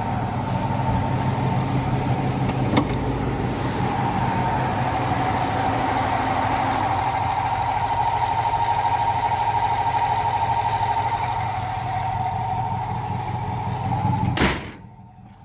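Ford F-150 5.0 L V8 idling with a steady high-pitched squeal from a failing water pump. The sound stops abruptly about a second before the end.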